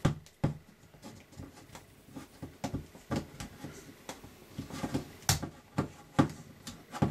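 Irregular plastic clicks and knocks as the back cover of a Nokia Lumia 820 is pressed at the corner and prised off the phone body, with two sharper clicks near the end.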